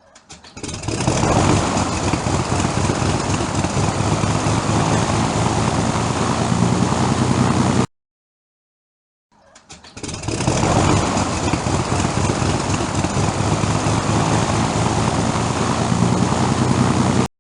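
Propeller aircraft engine starting, twice: each time a quick run of pops as it catches, building within about a second to steady running, then cutting off abruptly. About a second and a half of silence separates the two starts.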